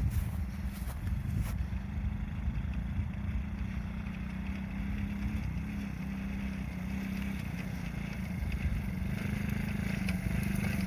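Small 50cc engine of a children's quad bike running steadily, with a few sharp clicks in the first second and a half.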